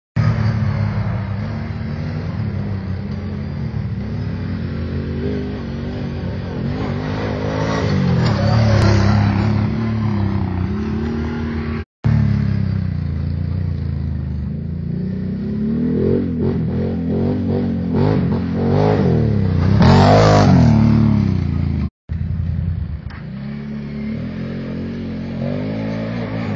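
Can-Am quad's engine revving up and down as it rides, its pitch repeatedly climbing and falling. The sound cuts out for an instant about halfway through and again near the end.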